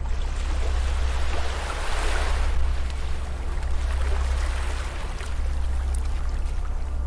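Ocean waves washing onto a beach, swelling about two seconds in and again about four seconds in, over a steady low rumble.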